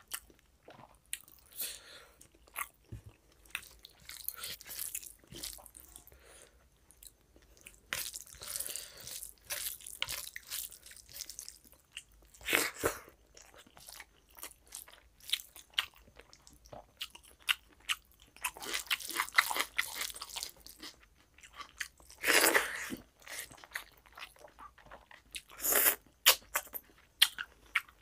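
Close-miked chewing of rice and mutton curry eaten by hand: irregular chewing and biting sounds, with several louder bursts.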